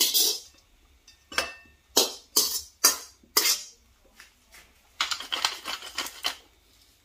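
A slotted metal spatula scraping a wok in several separate strokes as stir-fried shrimp and broccoli are pushed out onto a plate. Near the end a wooden pepper mill grinds with a rapid crackle for about a second.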